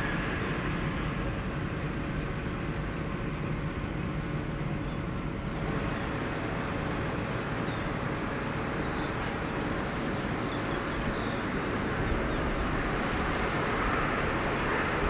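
Steady rumble of jet aircraft noise at an airport runway, growing a little louder and brighter toward the end.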